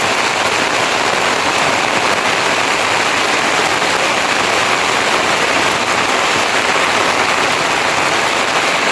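Heavy rain falling, a steady loud hiss with no pauses.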